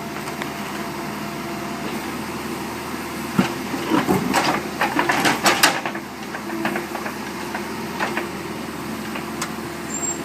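Backhoe engine running steadily, with a cluster of sharp clanks and knocks between about three and a half and six seconds in as the machine breaks up the yard.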